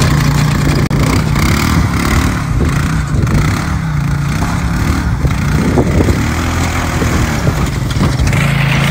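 An ATV engine running under load and pulling steadily, its pitch shifting slightly. It is towing a wrecked riding lawn mower that scrapes and plows through the dirt.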